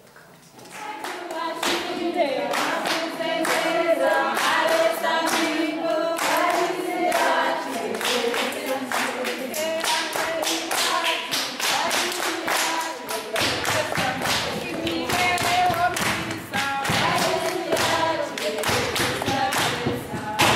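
A group of voices singing together, accompanied by steady rhythmic hand clapping, starting about a second in.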